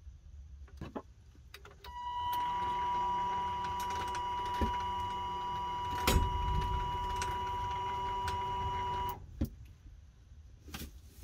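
Old windshield wiper motor, driven by a PWM motor driver board, running the automatic coop door for about seven seconds with a steady high whine. It starts about two seconds in and stops near nine seconds, with a single knock about six seconds in.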